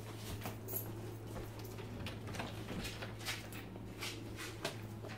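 Scattered light knocks and rustles over a steady low hum; the hum cuts off near the end.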